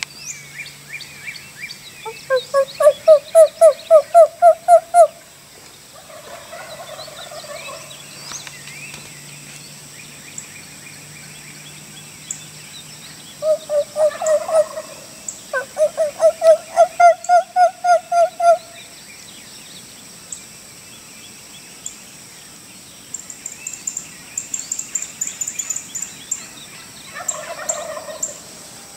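Wild turkeys calling from the trees: runs of loud, evenly repeated notes, about four a second, the first run about two seconds in, two more in the middle and a short one near the end. A steady high insect whine and ticking lie underneath.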